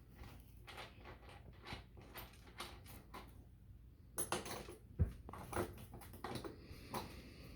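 Scattered light clicks and taps, with a sharper knock about five seconds in, from parts of a punching bag kit being handled and fitted together.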